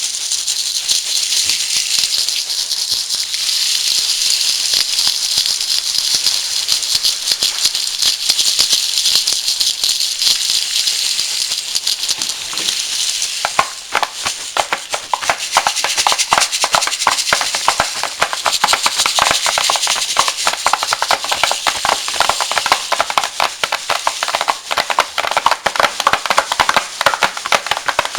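Rain stick imitating rain: a steady hiss of pebbles trickling down the tube, which about halfway through turns into a denser run of distinct clicks.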